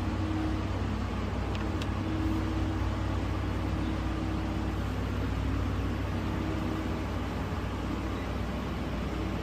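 Steady low hum with a fainter tone that comes and goes, over constant background noise.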